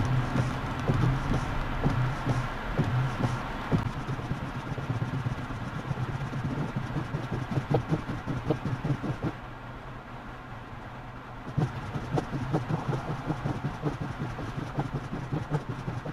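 Car driving on a highway in heavy rain, heard from inside the cabin through a dashcam: steady road and engine noise with many short ticks of raindrops hitting the windshield. The hiss thins out for about two seconds midway.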